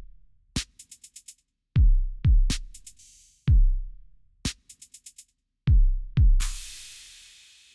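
Background music with a sparse beat: deep kick-drum hits, sharp snare-like hits and quick runs of about five hi-hat ticks. Near the end a cymbal swell rises and fades away.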